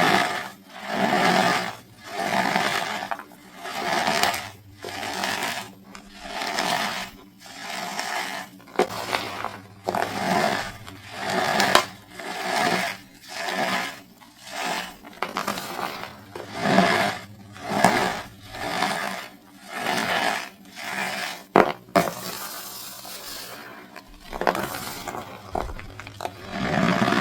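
Compressed cornstarch bricks squeezed and crushed by hand: a run of crunchy, squeaky squeezes at about one a second. A sharp snap comes about three-quarters of the way through, followed by a short lull before the crushing resumes.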